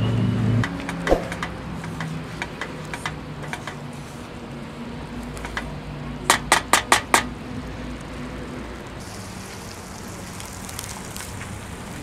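Wooden spatula scraping and knocking against a metal frying pan as eggs and tomatoes are stirred, over faint sizzling. About six seconds in comes a quick run of five sharp taps.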